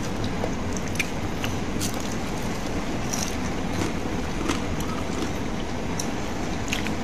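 Steady background noise, even and unchanging, with a few faint light clicks scattered through it.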